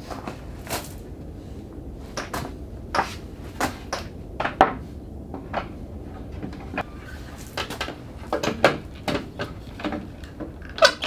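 A heavy white oak board knocking against wooden boat frames as it is set in place, with clicks of metal clamps being fitted: a dozen or so irregular sharp knocks over a steady low background noise.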